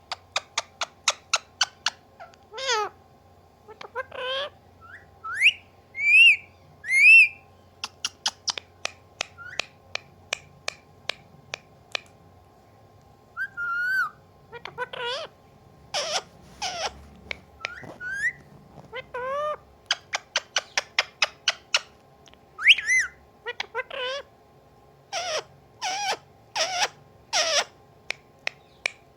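Pet parrot giving quick runs of sharp clicks, short rising and falling whistles, and drawn-out calls that drop in pitch like a cat's meow, in imitation of a cat.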